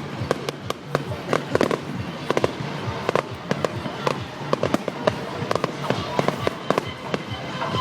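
Fireworks going off in a display: rapid, irregular bangs and crackles several times a second, with music playing underneath.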